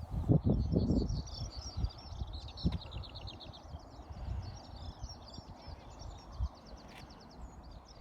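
Small songbirds singing, a mix of chirps and fast trills, with a few low thumps and rustles in the first second.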